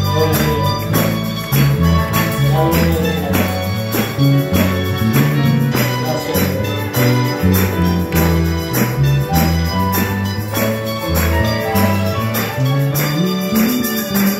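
Live church ensemble of strummed acoustic guitars and mandolins playing a hymn, with a bass line stepping from note to note under a steady, even strummed beat.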